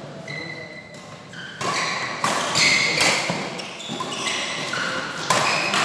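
Badminton rally: several sharp racket-on-shuttlecock hits ringing in a large sports hall, with short high squeaks from shoes on the court mat between them.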